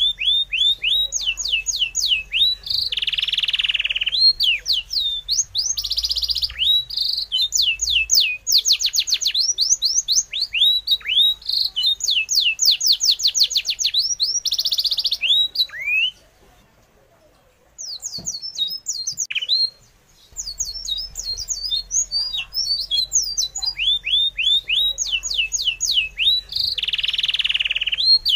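Birds chirping in quick runs of high, sweeping notes, with a break of about two seconds a little past the middle.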